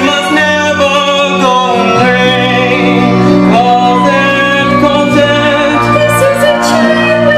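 Musical-theatre singing: a voice carrying a slow melody over sustained instrumental accompaniment.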